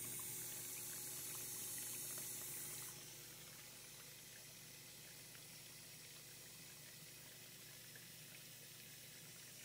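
Samsung dishwasher filling with water during a test run: a faint, steady rush of water running through the inlet. It drops quieter about three seconds in.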